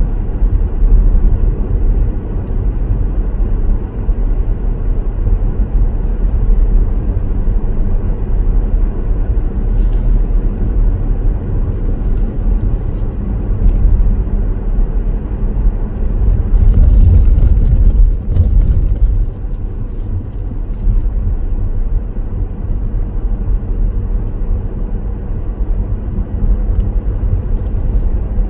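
Car driving along a road: a steady, low road and engine rumble, with a few faint ticks.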